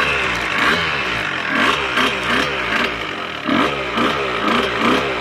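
Dirt bike engine running while being ridden, revving up and falling back again and again, with quick rises in pitch coming close together in the last couple of seconds.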